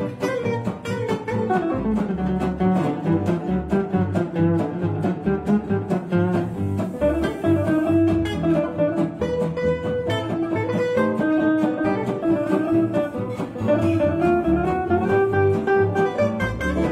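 Gypsy jazz played live on acoustic instruments. Oval-hole gypsy jazz guitars pick and chop chords in a steady beat, under a smooth, sustained melody from a bowed low string instrument.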